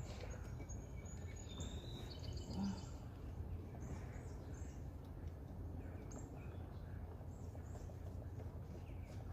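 Steady outdoor background noise with a bird chirping several times in the first three seconds. There is one soft knock about two and a half seconds in.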